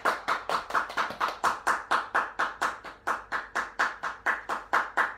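Steady, evenly paced hand clapping, about five claps a second.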